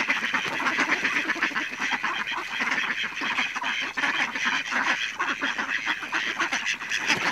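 A flock of tame mallard ducks quacking, many calls overlapping without a break.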